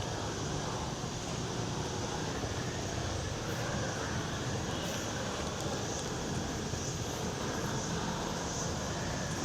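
Steady outdoor background noise with no distinct event, and a few faint high blips in the second half.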